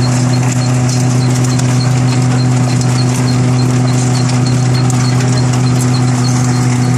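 Chestnut husking machine running at a steady speed: a loud, even mechanical hum with a light, regular ticking over it.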